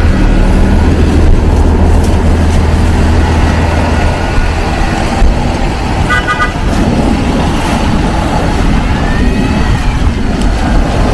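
City street traffic: a vehicle engine running steadily for the first few seconds, then, about six seconds in, a short car horn toot in a few quick pulses.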